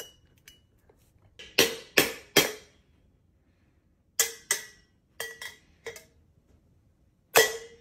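A long metal bar striking the base of a stainless steel Stanley tumbler, about nine sharp clanks in three quick groups and a last, loudest one that rings on briefly. He is hammering at the glued-on sealing dot to knock it off.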